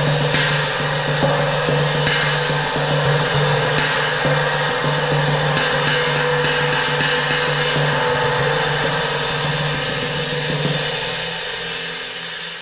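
A 23-inch flat China cymbal played with two soft mallets in a continuous roll, making a loud, steady wash of shimmer over a strong low hum. The roll thins and drops a little in level near the end.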